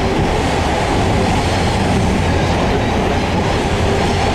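Heritage tram running along the track, heard from on board: a steady rumble of wheels on the rails.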